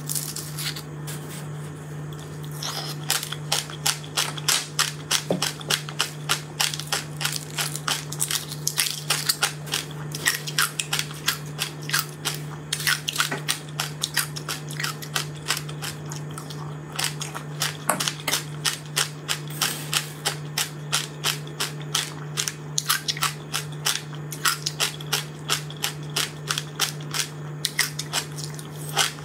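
Foil candy wrappers crinkling as they are peeled, then a long run of crisp crunching bites and chewing of seed-coated candy and spoonfuls of black seeds, close to the microphone. A steady low hum runs underneath.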